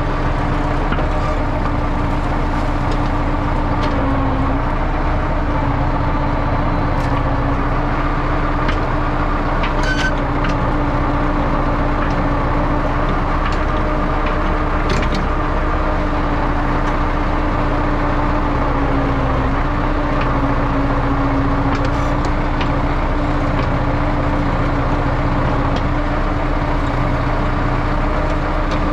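YuMZ EO-2621 tractor-backhoe excavator's diesel engine running steadily under working load, its pitch dipping briefly twice, with a few sharp clanks.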